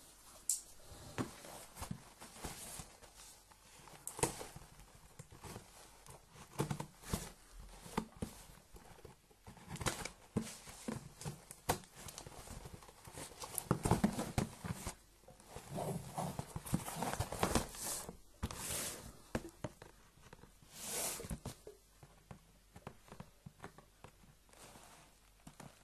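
A cardboard parcel sealed with brown packing tape being handled and worked open by hand: an irregular run of scrapes, taps and rustles, louder in the middle.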